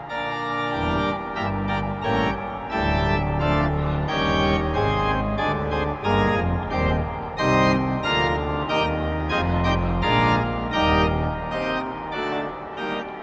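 Organ music: sustained chords over a stepping bass line.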